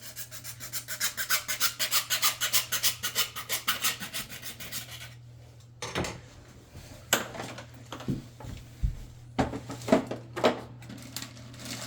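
Rapid back-and-forth cutting strokes, about eight a second, for roughly five seconds: a toilet part being cut to length. Then scattered knocks and clatters as parts are handled, over a steady low hum.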